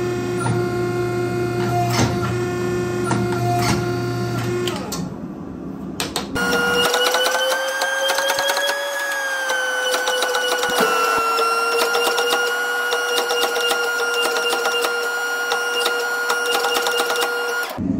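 Forging press running while its dies squeeze red-hot steel: a steady machine whine of several tones with a scatter of small clicks. About five seconds in it dips, then a higher whine sets in that rises a little, falls back, steps down once and cuts off suddenly near the end.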